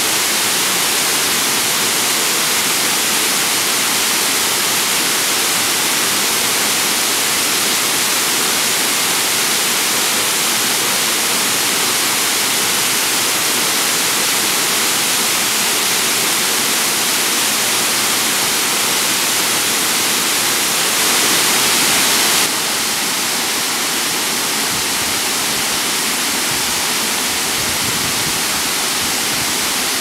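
Waterfall rushing: a steady, dense roar of falling water. It grows briefly louder about three-quarters of the way in, then settles a little lower.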